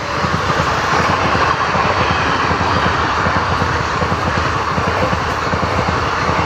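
Passenger train passing close by: a steady, loud rumble and rattle of the coaches' wheels running over the rails.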